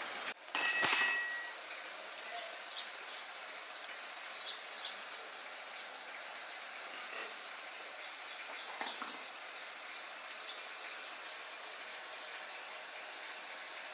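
A sharp click, then a short metallic clink that rings for about half a second, followed by a faint steady background with occasional small bird chirps.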